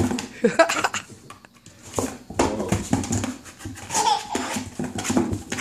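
A toddler laughing, several times over with short pauses between.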